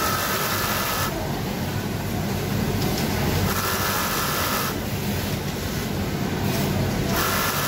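Brother twin-needle industrial sewing machine topstitching the edge of a band in three short runs of about a second each: at the start, around the middle and near the end, with pauses between. A steady low hum runs underneath.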